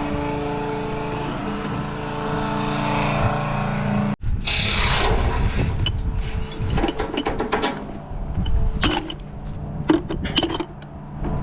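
A John Deere tractor's diesel engine running steadily. After a sudden break about four seconds in, it carries on under a scatter of clicks and knocks.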